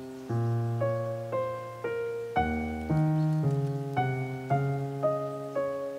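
Background piano music: a melody of struck notes, about two a second, over longer-held bass notes.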